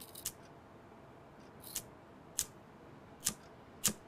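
A flint-wheel cigarette lighter being flicked again and again: five sharp scraping clicks at uneven intervals, coming closer together near the end.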